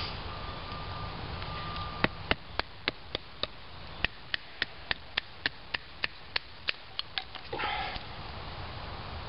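Wooden baton tapping the spine of a knife to split a small stick of cedar: a run of sharp, even knocks, about three a second, starting about two seconds in and stopping after some five seconds, followed by a short rasp.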